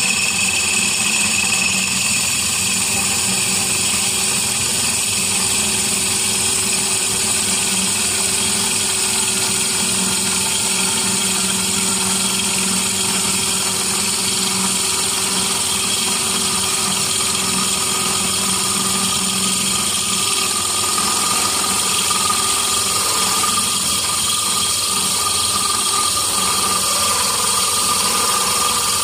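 Bench drill press running steadily, its hollow core bit grinding a hole into a glass bottle: a constant motor hum with a steady whine above it that grows a little stronger near the end.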